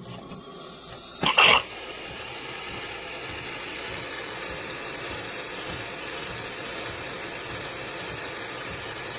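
De'Longhi Dinamica Plus espresso machine starting to froth milk: it starts abruptly, gives a loud short double spurt about a second in, then runs with a steady hiss and hum.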